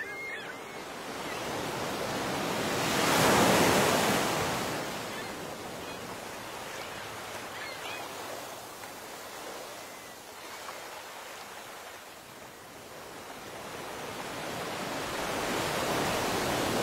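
A rushing noise with no steady tone swells to a peak about three and a half seconds in, eases off, then builds again near the end. A few faint short chirps glide through it.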